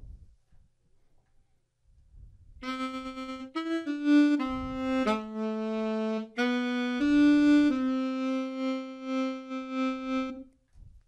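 Sampled alto saxophone from a Kontakt virtual instrument playing a short melodic phrase of about nine notes, ending on a long held note whose volume pulses: a vibrato faked by an LFO driving the MIDI volume controller (CC7).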